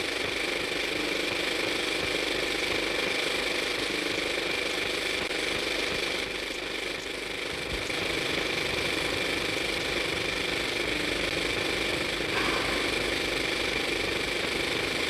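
Motion-picture film camera running through a take: a steady mechanical whir with a high whine.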